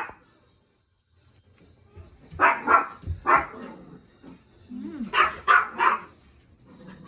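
Dogs barking in two short volleys of about three barks each, the first about two and a half seconds in, the second about five seconds in.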